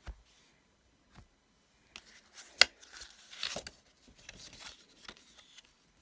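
Craft supplies being handled on a stamping platform: a few light clicks, one sharp click about two and a half seconds in, then paper and a cling-foam stamp rustling and sliding as they are positioned.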